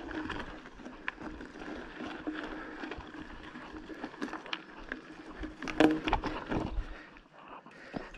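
Bicycle riding over a rough trail: steady tyre and rolling noise with scattered knocks and rattles, and a louder cluster of jolts about six seconds in.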